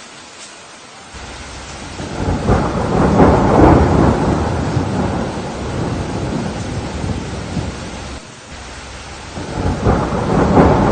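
Rain falling steadily through a thunderstorm, with rolling thunder: a long rumble swells about two seconds in and slowly fades, and a second one builds near the end.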